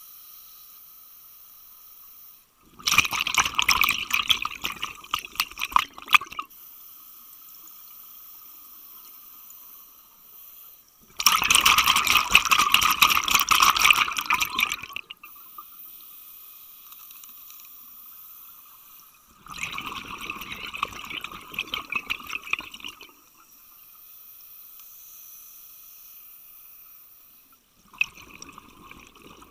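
Scuba diver breathing underwater through a regulator: exhaled bubbles gurgle out in three long bursts of about three to four seconds each, a fourth starting near the end, with a quieter steady hum between them.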